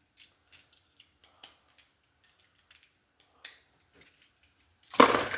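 Faint scattered clicks and taps of small metal hand tools being handled, then a loud metallic clink with a brief ring near the end as the tools knock together.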